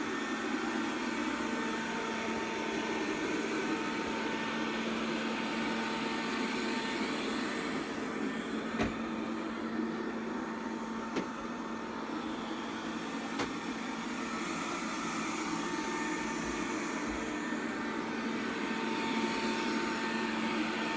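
Robit V7S Pro robot vacuum running steadily while it cleans under a bed: an even motor and suction hum with a constant low tone. Three short knocks come about midway.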